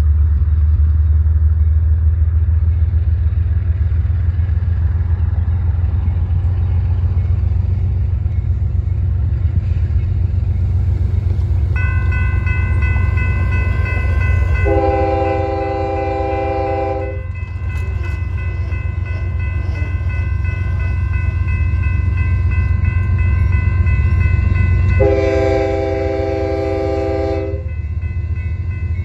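A railroad grade-crossing bell starts ringing about twelve seconds in as the crossing signals activate. Over it, an approaching Union Pacific freight locomotive's horn sounds two long blasts, one a few seconds after the bell starts and one near the end, warning of the train's approach to the crossing. A steady low rumble runs underneath.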